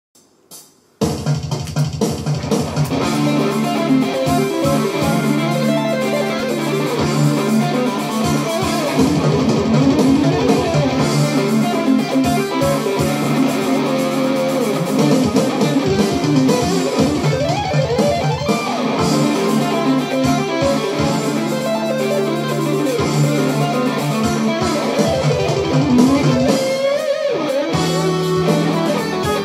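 Humbucker-equipped electric guitar played through a Hughes & Kettner amplifier, rapid runs of lead notes starting about a second in over sustained low notes.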